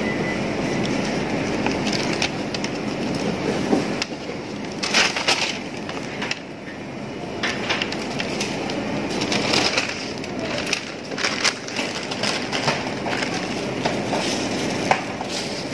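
Handling noises at a shop counter: irregular rustles and clicks of plastic packaging and items being moved, over a steady background din.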